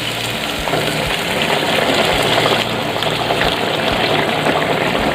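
Hot water pouring steadily into a pan where chicken and colocasia stems are frying in oil, a continuous gushing splash.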